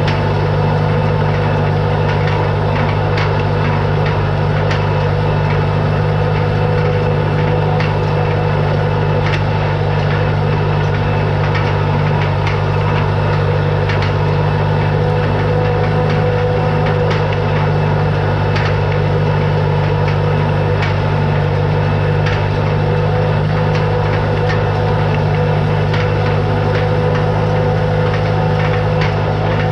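Tractor engine running steadily at an even speed, with scattered light clicks and knocks over it.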